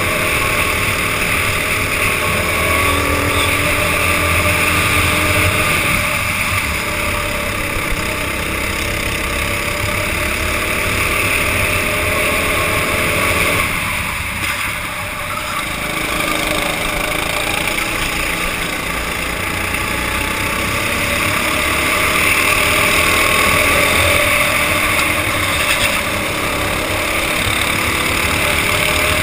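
Go-kart engine running at racing speed, its pitch climbing and falling as the throttle is opened and lifted through the corners, with a brief dip about halfway through. It is heard through a helmet-mounted GoPro with a steady rush of wind.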